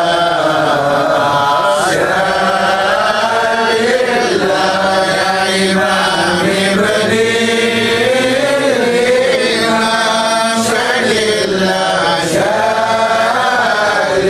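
Men chanting Arabic devotional verses of a mawlid recitation, a slow melodic line that glides up and down without any instruments.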